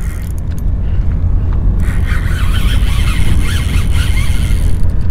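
Wind buffeting an action-camera microphone: a steady low rumble, with faint voices in the middle.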